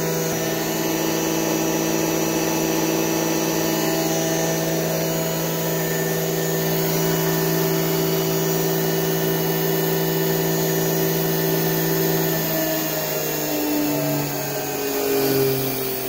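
A 1 HP washing-machine universal motor, rated 220 V AC, running on 60 V DC at very high speed, about 7000 to 8000 RPM, with a steady whine. After about 12 seconds the pitch wavers and shifts lower.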